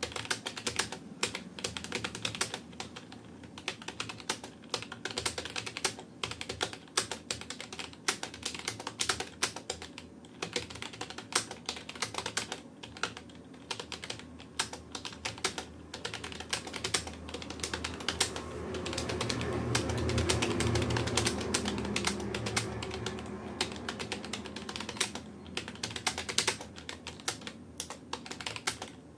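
Fast touch-typing on a Rapoo computer keyboard: a rapid, continuous stream of key clicks. About two-thirds of the way through, a low rumble swells and fades beneath the typing.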